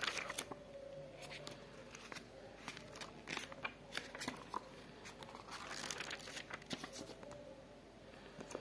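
Paper pages of a small lined notebook being handled and turned: a series of soft rustles and light clicks, with a longer rustle about six seconds in.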